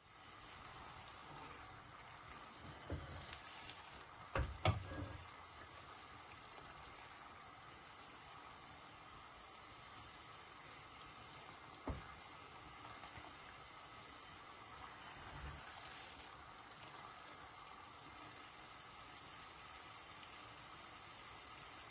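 Sugar syrup boiling in a nonstick frying pan, a steady bubbling hiss. A few short knocks break in, loudest about four and a half seconds in and again near twelve seconds.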